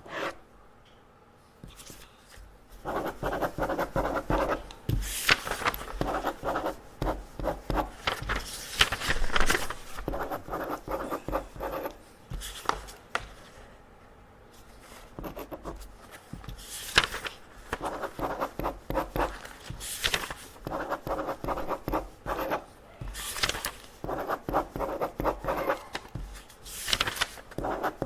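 Pen scratching on paper as test sheets are marked: runs of quick, dense strokes with a few longer, louder sweeping marks, broken by short pauses.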